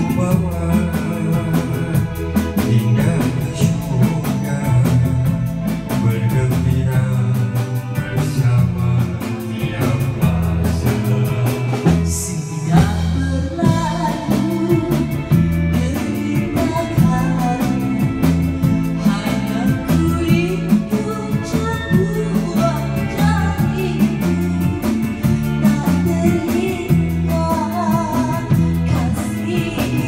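Amplified music: a singer's voice through a microphone and loudspeaker over a steady drum beat and a repeating bass line.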